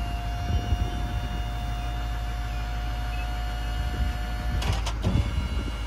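Chevrolet Silverado 3500's 6.6-litre Duramax diesel idling with a steady low rumble and a thin steady whine that stops about four and a half seconds in, followed by two sharp clicks.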